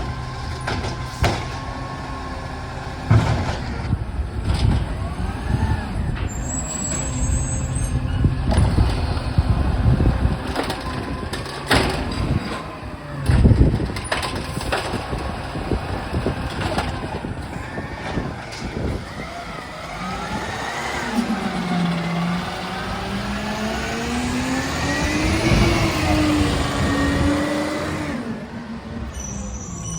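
Recycling truck's diesel engine running, with scattered knocks and bangs, the loudest about halfway through. In the second half the engine note climbs and falls over several seconds as it revs.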